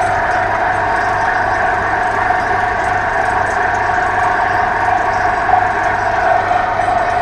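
Heavy diesel machinery of a sheet-piling rig running steadily at constant speed, a loud even drone with a steady whine in it.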